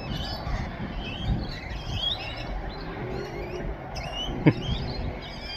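Small birds chirping and singing over a steady low rumble, with one sharp click about four and a half seconds in.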